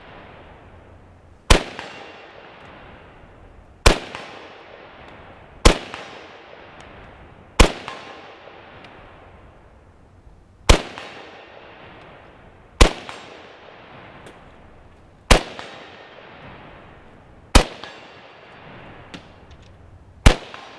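Yugoslavian M59/66 SKS semi-automatic rifle firing 7.62×39 mm rounds: nine single shots at an uneven pace, about two to three seconds apart. Each is a sharp crack with a short echo trailing off.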